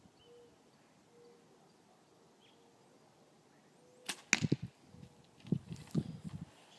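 A shot from a primitive bow about four seconds in: a sharp snap of the released string and arrow, followed by low thuds, with more low thuds a second or so later.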